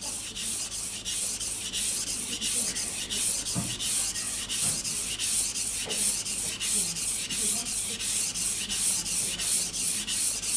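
A kitchen knife blade, held in a clip-on guide rail, being pushed back and forth on a wet Japanese water stone: a gritty scraping hiss in quick, even strokes, about three a second. The unchanging sound of each stroke is the sign of a constant sharpening angle.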